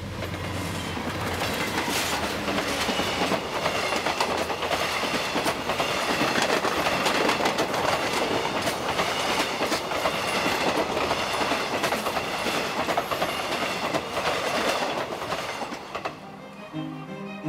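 Diesel-hauled passenger train passing close by. A low engine hum comes first as the locomotive goes past, then the coaches' wheels clack rhythmically for most of the pass. The train sound dies away about a second before the end, when string music comes in.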